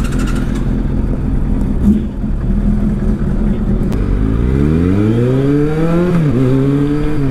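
Motorcycle engine under way, running with a steady low rumble. About four seconds in it accelerates, its pitch rising steadily. Near six seconds it dips briefly at a gear change, then holds a steady pitch.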